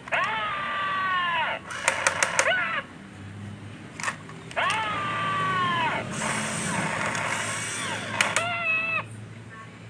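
Toy Story dinosaur toy playing electronic roar sound effects through its small speaker: two long pitched calls that fall and then hold, separated by quick clicks, with a low steady hum starting about three seconds in.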